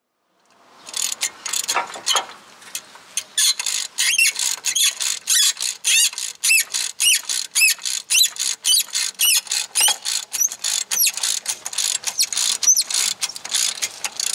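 Hand ratchet with a Phillips bit working back and forth in quick, even strokes, clicking on each return stroke, to back out a stubborn brake rotor retaining screw. It starts about a second in.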